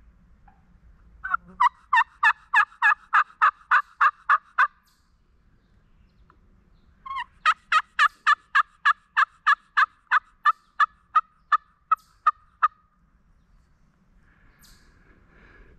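A turkey calling in two long runs of evenly spaced, sharp notes, about three to four a second. The second run comes after a pause of a couple of seconds and is the longer, with some seventeen notes.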